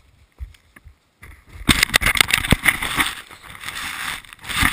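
Handling noise on an action camera: about a second and a half of muffled near-quiet, then dense rubbing and scraping on the camera with many irregular knocks.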